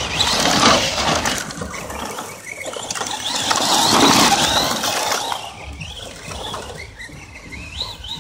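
Traxxas Slash 4x4 radio-control short-course truck driving fast over dirt and gravel, its electric motor whining and its tyres crunching. It is loudest as it passes close about four seconds in, then fades as it drives away.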